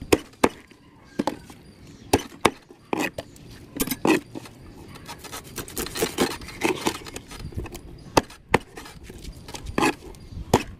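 Heavy fish knife chopping fish on a wooden cutting board: a string of irregular, sharp chops as the blade strikes through into the wood. Around the middle come denser scraping and rubbing sounds as the blade works against the fish's scaly skin.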